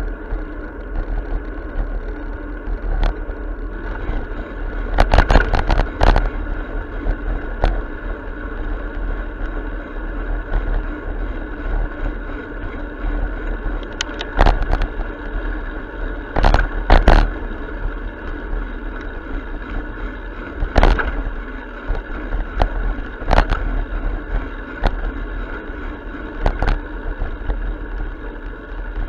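Bicycle rolling over pavement: a steady rumble of tyres and wind, with sharp knocks and rattles from bumps several times.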